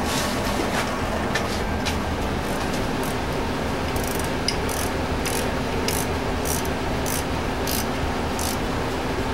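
A wrench ratcheting in short, even strokes, about one every two-thirds of a second from about four seconds in, as a bolt on a steel lathe lamp bracket is tightened. A steady hum runs underneath.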